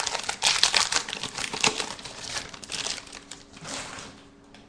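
Plastic wrapper of a football trading card pack crinkling as it is handled and opened, dense irregular crackling that dies away near the end.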